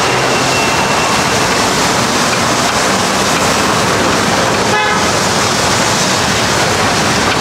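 Vegetable stuffing frying in butter on a large flat griddle (tawa), a steady sizzle mixed with road traffic. A short vehicle horn toot sounds about five seconds in.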